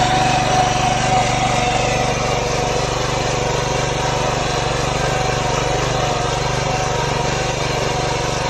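Small single-cylinder engine of a 7 hp walk-behind tractor running steadily under load as it pulls a furrowing plough through soil, not labouring.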